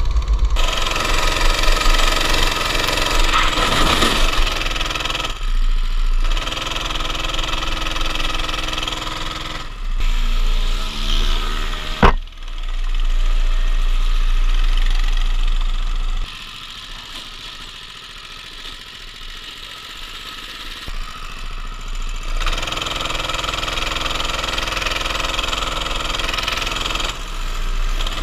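Go-kart engines heard from a camera mounted on the kart, running at changing speeds, with the sound changing abruptly every few seconds. There is a sharp knock about twelve seconds in, and the engine is quieter for several seconds after about sixteen seconds.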